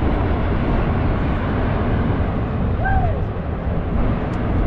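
Loud, steady rumble from the active crater of Mount Bromo volcano as it vents smoke. A short tone rises and falls about three seconds in.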